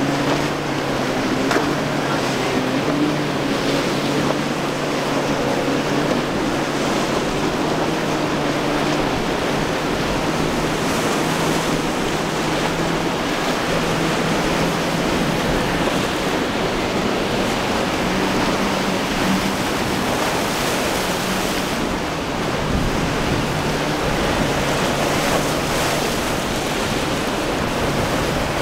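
Waves surging and wind on the microphone, under the steady drone of a small boat's outboard motor running under way through the chop.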